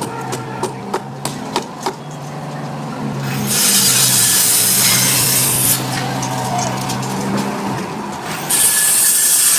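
Engine of heavy machinery running steadily, with a few sharp clicks in the first two seconds. About three and a half seconds in, and again near the end, it is overlaid by stretches of loud, harsh rasping noise.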